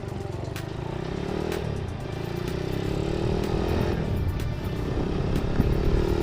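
Honda GL-series single-cylinder four-stroke motorcycle engine under way, accelerating through the gears. Its pitch climbs, drops briefly at each shift about one and a half and four seconds in, then climbs again.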